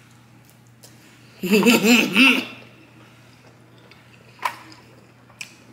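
A woman laughing once for about a second, about a second and a half in, followed by a short click a few seconds later.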